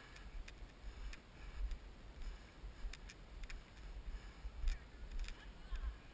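Footsteps on a dry dirt-and-grass trail, picked up through a GoPro's waterproof housing: irregular light ticks and scuffs over a low rumble of wind and movement on the camera.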